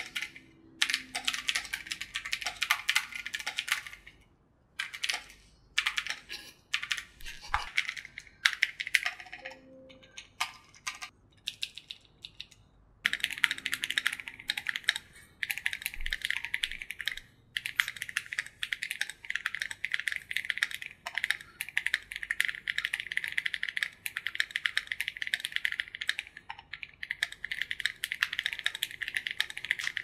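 Typing on a Gamakay K87 acrylic mechanical keyboard fitted with KTT Kang White linear switches and XDA-profile keycaps, built to be loud. About the first dozen seconds are short bursts of keystrokes with pauses; from then on the typing runs fast and unbroken.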